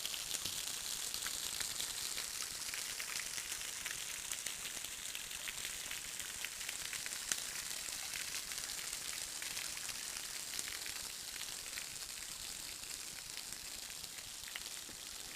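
Waterfall splashing: a steady high hiss of falling water with many small ticks of drops, easing off a little near the end.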